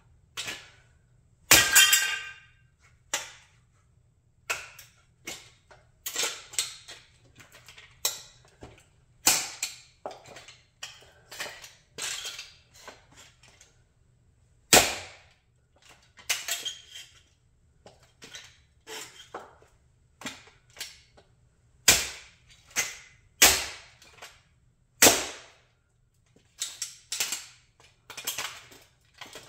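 Model Chrysler 300B car crushed under stiletto heels on a concrete floor: an irregular run of sharp cracks and snaps as its parts break, mixed with heel clicks on the concrete. The loudest cracks come about a second and a half in and a few more in the second half.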